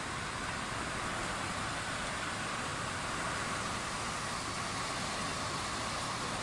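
Heavy downpour driven by strong wind: a steady, even rushing noise of rain and gusts with no distinct strikes or claps.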